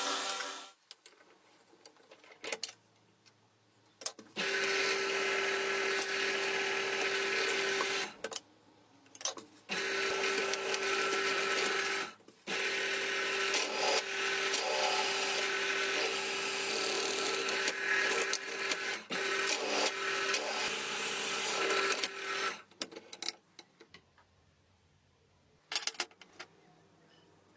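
A small electric power tool running at a steady pitch in three bursts with short stops between, the longest lasting about ten seconds. Quieter clicks and knocks of handling come before and after.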